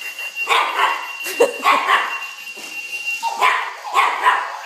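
Pomeranian puppy barking and yipping at a Clocky alarm clock: short, high barks several a second, with a brief lull a little past the middle. A thin, steady high tone runs underneath and stops about three seconds in.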